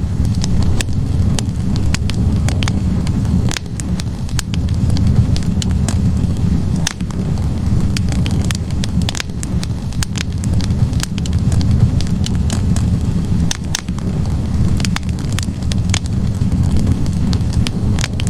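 Wood fire burning in a fireplace: a steady low rumble of flames with frequent irregular crackles and pops from the logs.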